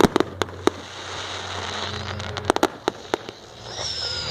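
Fireworks display: sharp bangs of shells bursting, a quick cluster in the first second and a few more about two and a half seconds in, over a steady crackle. Near the end a high whistle falls slightly in pitch.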